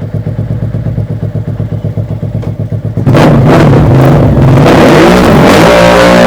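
Suzuki SV1000 V-twin engine of a custom motorcycle idling with an uneven, pulsing beat, then about three seconds in revved up hard and loud, its pitch rising and falling with the throttle.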